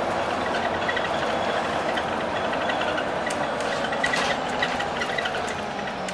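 Alexander Dennis Enviro400 Hybrid double-decker bus, with a BAE Systems hybrid drivetrain, heard from the upper deck while under way: a steady drone of drivetrain and road noise, with scattered clicks and rattles from the bus's fittings.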